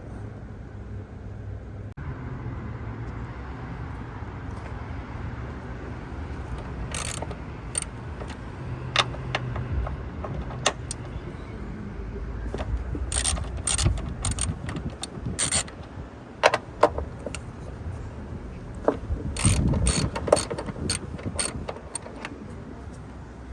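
Ratchet wrench clicking in short bursts as the front strut mount nuts are loosened, over a low steady hum.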